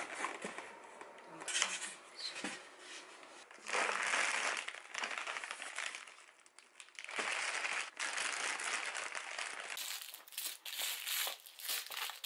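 Plastic packaging bags crinkling as they are handled and unwrapped, in irregular bursts that come thicker near the end.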